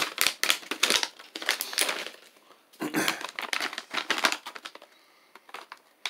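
Clear plastic bag of beef jerky crinkling and rustling as it is handled and opened, in two stretches: the first at the start and the second about three seconds in, both dying down near the end.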